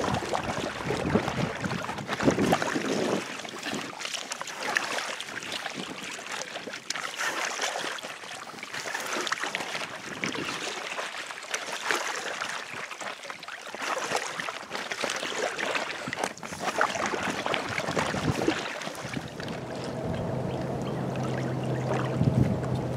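Paddles splashing and water lapping around an inflatable kayak on choppy open water, with wind on the microphone; the splashes come in uneven bunches. Near the end a steady low hum comes in.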